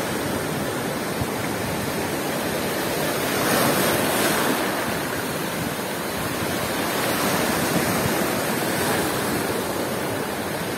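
Black Sea storm surf: big waves breaking and washing up the beach in a continuous roar, swelling louder about four seconds in as a breaker crashes, and again later.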